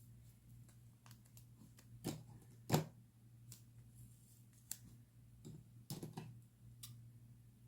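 Scattered small clicks and taps of paper and stationery being handled on a desk during journal decorating, with two louder taps a little under a second apart about two seconds in and another cluster near the end.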